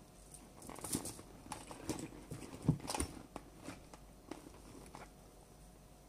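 Hands rummaging through a handbag: irregular soft rustles and light knocks of things inside being moved about, the loudest knock near the middle.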